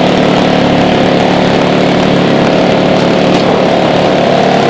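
Small engine running steadily at constant speed, a loud even hum, with two faint clicks about three seconds in.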